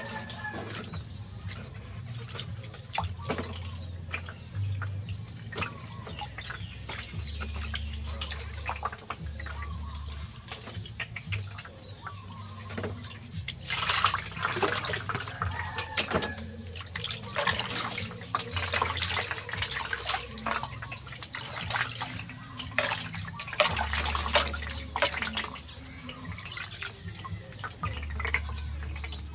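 Water splashing and dripping into a large metal basin as a newborn monkey is bathed by hand, with water poured over it from a plastic dipper. The splashing grows louder and busier about halfway through.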